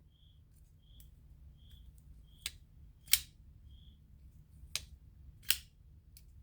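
Twosun folding knife being flicked open and shut: four sharp clicks in two pairs, as the blade snaps out and drops closed.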